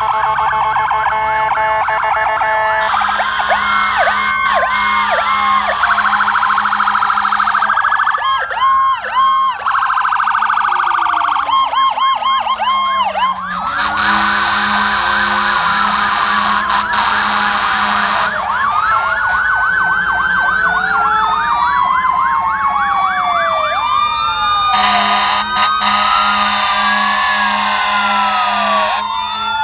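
Fire engines' sirens wailing and yelping over one another as the trucks roll past in a slow procession, the sweeps rising and falling out of step. Long horn blasts come in three times, about three seconds in, around fourteen seconds in and again near the end.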